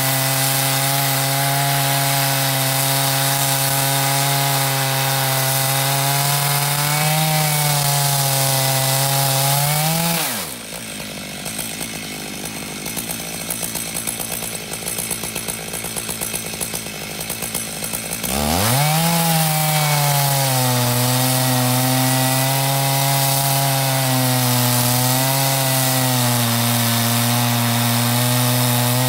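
Chainsaw mill's two-stroke chainsaw at full throttle, ripping lengthwise through a large cedar log. About ten seconds in the engine falls back to idle for several seconds, then revs up again and carries on cutting.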